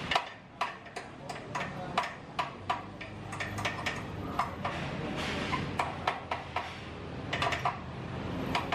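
Hand hammer tapping on the steel motorcycle frame and engine mount: irregular sharp metallic knocks, a few a second, some in quick clusters.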